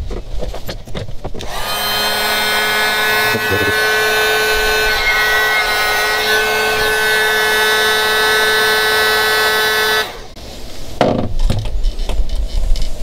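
Heat gun running steadily, a motor whine over blowing air, shrinking a heat-shrink connector on a wire. It switches on about a second and a half in and cuts off about ten seconds in, followed by the clatter of wires being handled.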